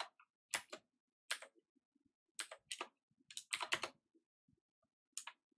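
Keystrokes on a computer keyboard as code is typed, about a dozen short clicks in small bursts with pauses between them.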